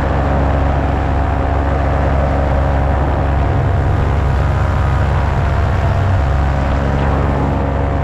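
Paramotor's backpack engine and propeller running steadily at cruise throttle in flight, heard close up as a loud, even drone.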